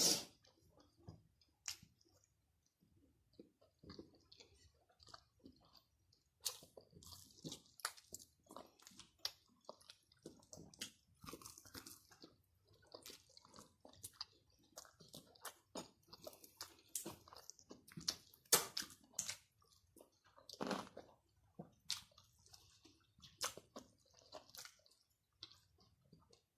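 A person chewing and crunching food close to the microphone, with many short, irregular crunches and mouth sounds and two louder crunches about two-thirds of the way through.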